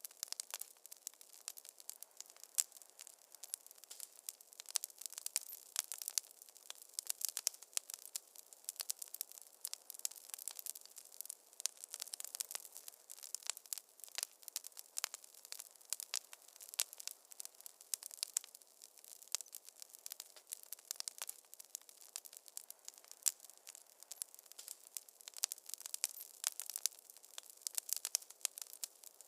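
Wood fire crackling in a fireplace: a dense, irregular run of sharp pops and snaps over a soft hiss.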